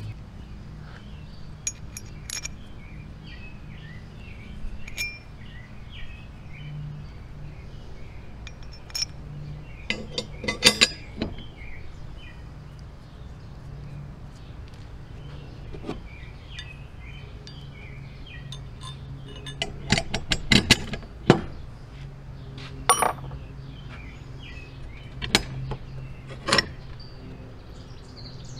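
Steel log-clamp parts (cam, clamp dog, hex bolts and nuts) being handled, taken apart and set down on a plywood bench, making scattered metal clinks and knocks. There are bunches of clinks about ten seconds in and again around twenty seconds in.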